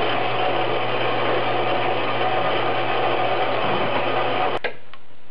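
Steady machine hum with an even hiss, cutting off abruptly near the end.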